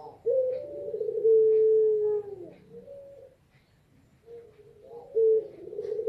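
Female puter pelung, a long-cooing variety of ringneck dove, cooing: long, low drawn-out coos, each held on one note and then dropping at the end. One long coo is followed by a short note and a brief pause, then a second coo starts near the end.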